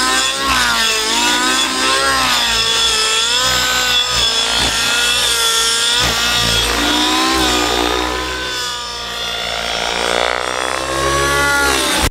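O.S. 105 two-stroke nitro engine with a Powerboost tuned pipe, powering a Velocity 90 RC helicopter in flight, its pitch swinging up and down about once a second as the load changes through manoeuvres. It is set a little on the rich side. The sound dips in loudness and its pitch sweeps about nine to eleven seconds in.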